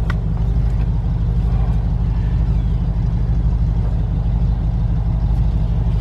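An engine idling steadily: a low, even rumble.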